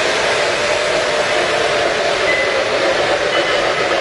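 Model trains running on a layout: the steady whir of their electric motors and the rumble of metal wheels on the track.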